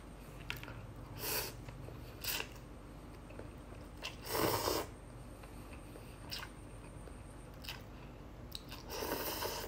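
A person slurping instant noodles in soup and chewing: a string of short slurps, with two longer, louder slurps a little after four seconds in and near the end.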